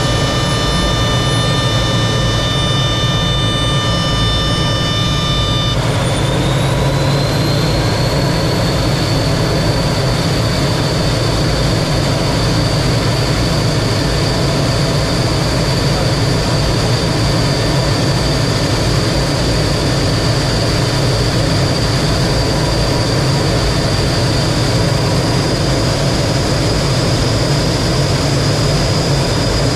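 T-33 jet trainer's turbojet engine running steadily, a high whine over a deep rumble. About six seconds in, a cluster of high tones cuts out and the whine rises in pitch over a couple of seconds, then holds.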